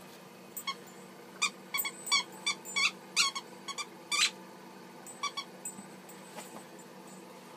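A Weimaraner puppy at play, with quick runs of short, high-pitched squeaks, most of them in the first half, a few more around five seconds in, then they stop.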